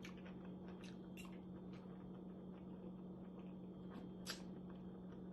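Faint chewing and wet mouth clicks while eating, a few sharp clicks, the strongest about four seconds in, over a steady low hum.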